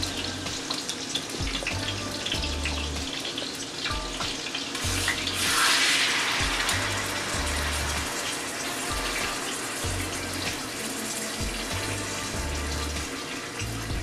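Steaks sizzling steadily in hot grease in a skillet, with a louder surge of sizzle for a second or two about halfway through.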